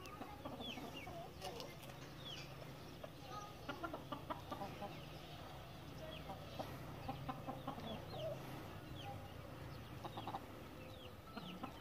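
Chickens in a flock clucking softly and intermittently, with many short high chirps scattered through and a faint low hum underneath.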